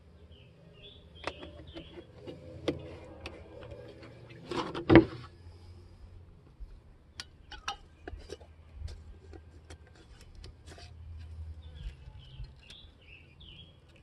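Clicks and knocks from a glass mason jar of sugar syrup being handled and fitted with its metal feeder lid, with one louder knock about five seconds in. Short bird chirps come at the start and near the end.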